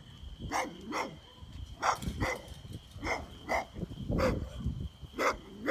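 A dog barking repeatedly, short barks coming mostly in quick pairs, about one pair every second or so.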